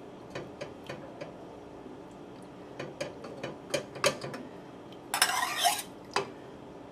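Metal spatula clicking and tapping against the pot and a small stainless steel cup as solidified fat is skimmed off chilled stock, with one short scrape a little after five seconds.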